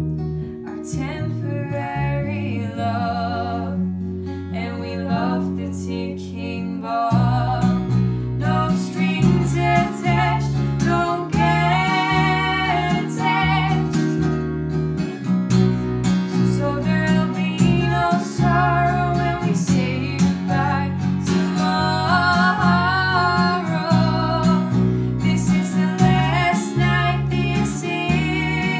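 A young woman singing a slow pop song, accompanied by her own strummed Taylor acoustic guitar and a second player's electric bass line.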